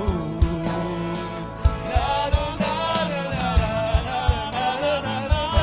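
A Christian pop-rock band plays a worship song in a short instrumental gap between sung lines. A drum kit keeps a steady beat under sustained keyboard and guitar chords and bass. A wavering melodic line comes in about two seconds in.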